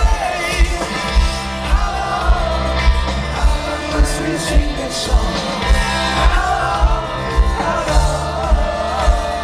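Live band playing loud amplified music through a big festival stage's sound system, a singer's voice over a steady kick-drum beat, heard from inside the crowd.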